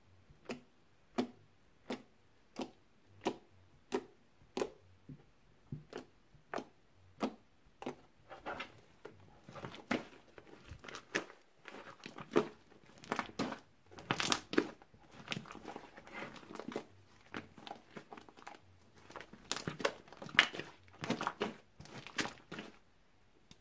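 Fluffy slime made of clear slime and shaving foam being worked by hand, crackling and popping. It gives evenly spaced single pops, about one every two-thirds of a second, for the first eight seconds, then turns into a denser, irregular run of squishy crackles as the slime is squeezed and kneaded.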